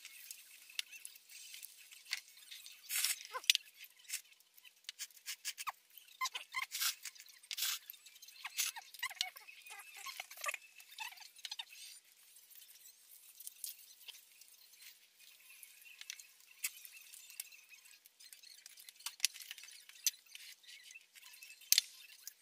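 Eating at the table: soba noodles slurped, with chopsticks clicking against bowls and plates. The sounds are many short, irregular clicks and slurps, busiest in the first half and thinning out later.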